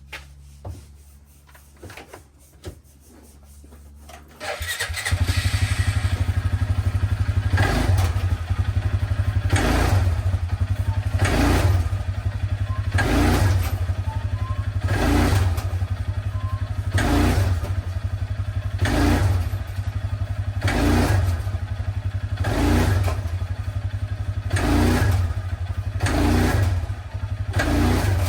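A machine starts up about four and a half seconds in and keeps running with a steady low rumble, swelling in an even beat about every two seconds.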